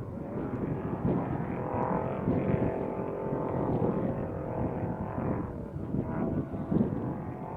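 Engine of a Class 1 unlimited off-road race truck running hard at high revs, its pitch dropping a little past the middle.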